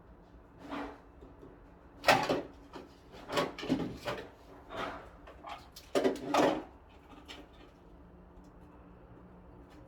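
Parts of a side-by-side refrigerator being handled during disassembly: a series of knocks, clatters and scrapes of drawers or panels, loudest about two seconds and six seconds in, then settling.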